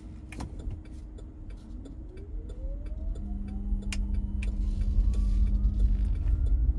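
Chevy Tahoe Hybrid's two-mode electric drive pulling away from auto stop on battery power alone: a motor whine rises steadily in pitch as the SUV gathers speed, over low road rumble that grows louder. A brief steady hum sits in the middle, and there are a couple of light clicks. Heard from inside the cabin.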